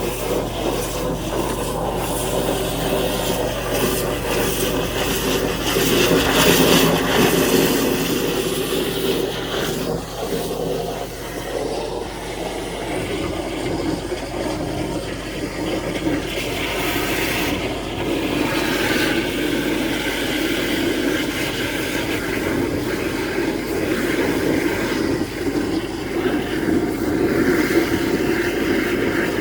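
High-pressure drain water jetter running steadily, its engine-driven pump droning under a rushing hiss of water.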